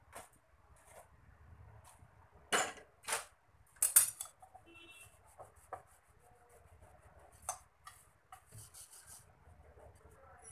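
Kitchen utensils being handled at a gas stove: metal tongs, an iron tawa and a steel plate give a few scattered sharp knocks and clinks, the loudest about four seconds in.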